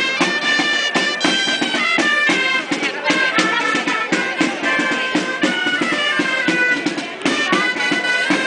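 Gralles, Catalan double-reed shawms, playing a lively traditional dance tune, loud and nasal, with quick ornamented runs between held notes.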